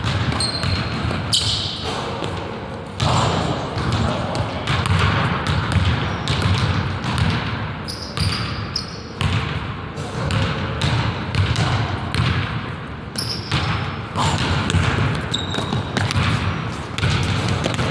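Basketball bouncing repeatedly on a hardwood gym floor, with sneakers squeaking in short high chirps now and then, all echoing in a large hall.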